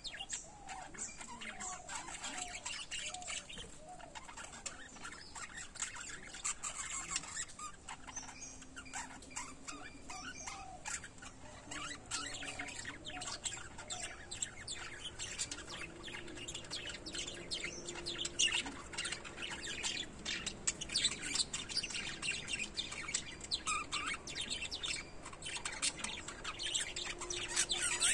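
Small pet parrots chirping and twittering without pause, a dense stream of quick, high, overlapping chirps with the odd squawk.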